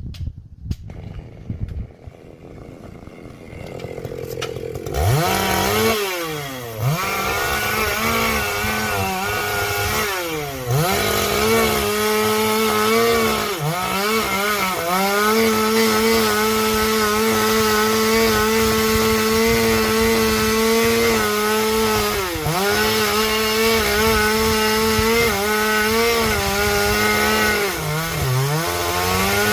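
A chainsaw spins up about five seconds in and runs at a steady high speed. Its pitch dips several times as the chain bites into the mulberry wood and climbs back each time.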